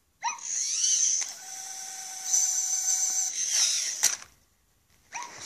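Zoomer robot dog playing electronic sound effects through its speaker, with its motors whirring as it moves back up from playing dead: sweeping tones at the start and end and a steady tone in the middle, stopping about four seconds in.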